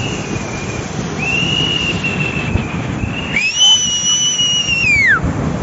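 Steady rushing noise of floodwater, with a series of long, high whistle tones over it; the loudest, about three and a half seconds in, rises, holds steady for over a second, then falls away.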